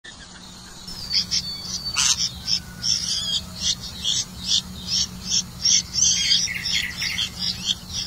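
Red-vented bulbul nestlings begging for food: a fast run of short, high chirps, two or three a second, starting about a second in.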